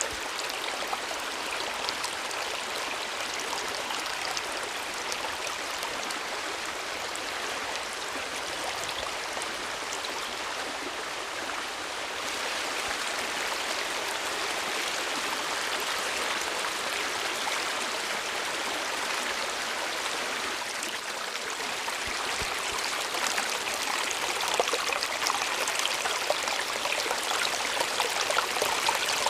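Waterfall: water falling and splashing in a steady rush, a little louder and splashier in the last few seconds.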